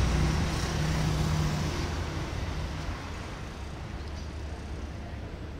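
Passenger train rolling away on the track, the low rumble of its wheels fading steadily as the last coach recedes.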